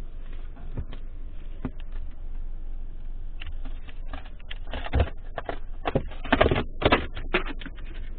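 Irregular rustling, clicks and knocks of close handling noise, loudest in a cluster about five to seven seconds in, over a steady low hum inside a car cabin.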